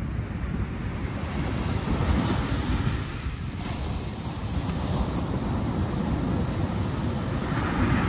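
Sea waves breaking and washing up a small-pebble beach: a steady rush of surf that swells louder as waves crash, about two seconds in, again around five seconds and near the end.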